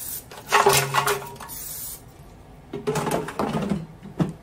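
An aerosol olive-oil cooking spray hissing in short bursts over potatoes in an air-fryer basket. It is followed by knocking and clattering, with a couple of sharp clicks near the end, as the basket is pushed into the air fryer.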